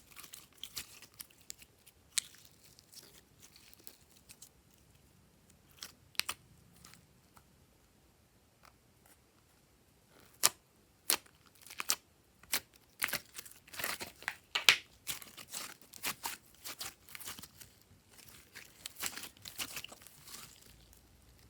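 Glossy slime being mixed and squeezed by hand, giving sharp sticky pops and crackles. They are sparse at first, stop for a few seconds, then come thick and fast later on.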